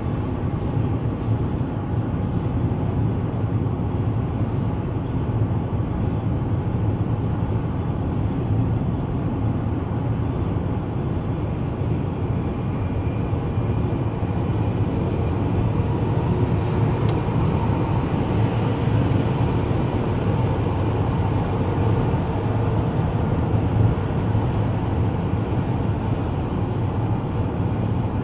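Steady road and tyre noise with engine hum inside a car's cabin at highway speed.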